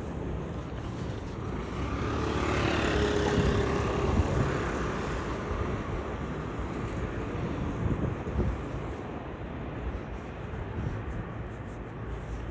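Street traffic noise with one vehicle passing close. It swells and is loudest a few seconds in, then fades back into the steady traffic.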